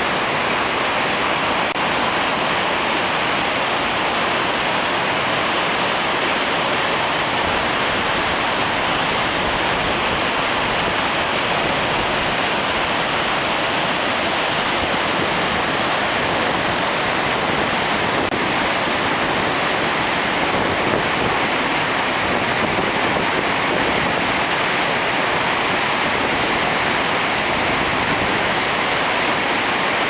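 Waterfall and the fast river rapids below it, rushing over rocks in a loud, steady roar of water.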